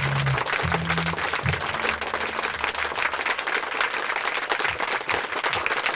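Crowd applause: steady, dense clapping throughout, with a few low music notes underneath in the first two seconds.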